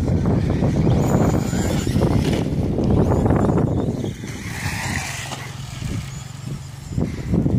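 Wind buffeting the microphone in gusty, irregular rumbles that ease about four seconds in.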